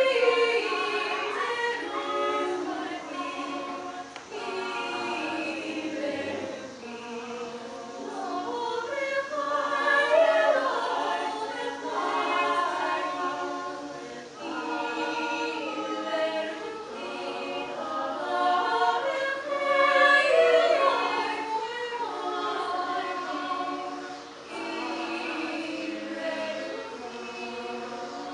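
Women's vocal ensemble singing a cappella in several-part harmony, in phrases that swell and fall back.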